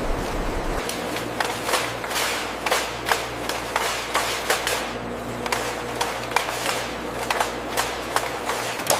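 Machinery running with a steady low hum, with irregular sharp clicks and knocks, about two or three a second.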